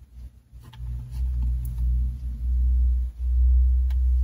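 Low rumble from handling noise, as the pouch is held and moved close to the recording device. There is a short break about three seconds in.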